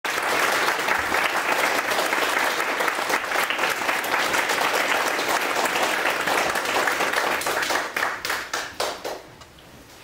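Audience applauding, a dense steady patter of many hands that thins to a few separate claps near the end and dies away.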